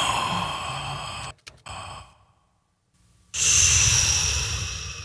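A breathy mouth-made sigh played back as a sound effect, processed with reverb, compression, a tape-machine emulation and an EQ that lowers the highs. The effect is heard twice: each starts abruptly and fades away over about a second and a half. There is a short puff and about a second of silence between them.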